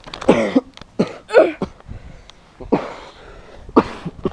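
A person breathing hard and gasping close to the microphone, with a loud breath about once a second, a few of them voiced.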